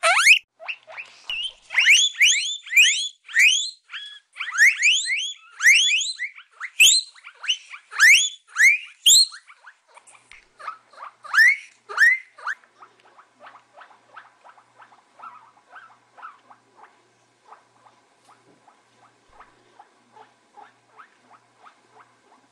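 Guinea pig wheeking: a rapid series of loud, rising squeals, several a second, for about the first twelve seconds. After that come much quieter short pulsed calls at a steady rhythm, about two a second.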